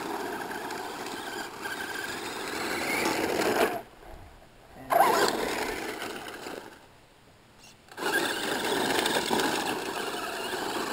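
Electric RC truck's motor and drivetrain whirring in spurts under throttle, dropping out twice for about a second, as its battery runs down.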